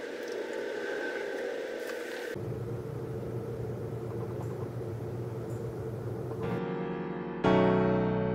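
Steady low background hum, then electric-piano music comes in near the end with loud sustained chords.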